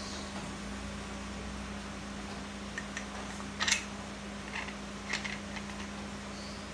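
A few light clicks and taps of metal parts as a starter motor's armature is fitted into its field housing, the loudest about three and a half seconds in, over a steady low hum.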